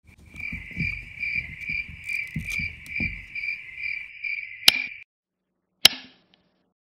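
A steady, high-pitched trill pulsing a little over twice a second, which cuts off suddenly about five seconds in. Two sharp clicks follow, the second just before fingers rest on a panel of wall light switches, which fits switches being flipped.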